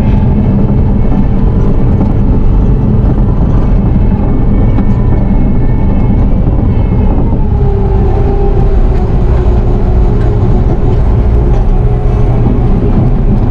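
Bobcat T650 compact track loader's diesel engine running steadily, heard from inside the cab while the machine drives with a loaded bucket of stone. A whining tone over the engine shifts to a different, steadier pitch about halfway through.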